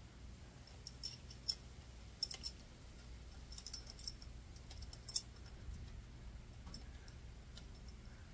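Light metallic clicks and clinks from clutch pressure-plate bolts and a socket ratchet being handled as the bolts are started into the clutch hub. About a dozen irregular clicks, the sharpest at about a second and a half in and near five seconds in, over a faint steady low hum.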